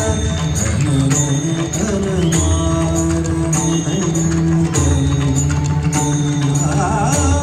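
Music from a light-and-sound show's soundtrack: held notes over a steady beat, with a wavering melody line near the end.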